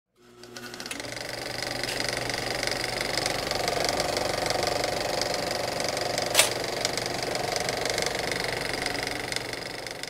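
A fast, steady mechanical ticking buzz that fades in over the first second and fades out near the end, with one sharp click a little past six seconds in.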